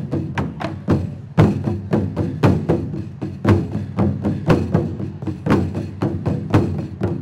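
Japanese taiko drums struck with wooden sticks in a steady rhythm, several strikes a second, with a short drop just before a heavy hit about a second and a half in.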